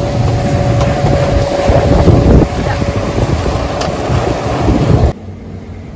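Motorboat engine running under heavy wind buffeting the microphone. About five seconds in, the sound drops abruptly to a much quieter level.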